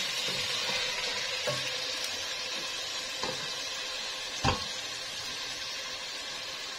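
Mutton pieces sizzling steadily in hot oil in a stainless steel pot while being stirred with a wooden spatula. A few short knocks of the spatula come about one and a half, three and four and a half seconds in, the last the loudest.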